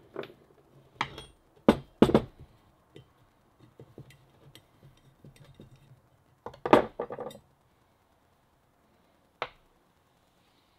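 Screwdriver scraping and clinking inside a bronze marine raw water pump housing on a wooden bench: a string of sharp metal clinks and knocks with quieter scratching between, the loudest a short clatter about seven seconds in.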